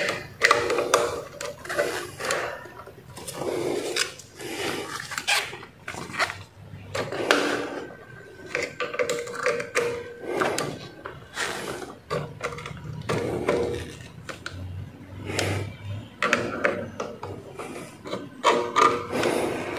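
Hand tools working at a circuit breaker terminal: a screwdriver and then pliers scraping, rubbing and clicking irregularly against the terminal screw, wire and plastic breaker body while a wire is pushed into the terminal.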